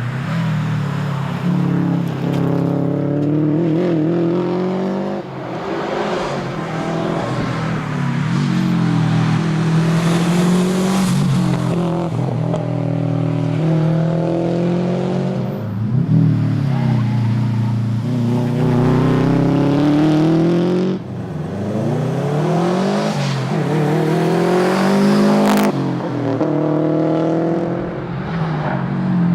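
Subaru WRX STI's turbocharged flat-four engine driven hard, its revs climbing and then dropping again and again as it shifts and lifts for corners.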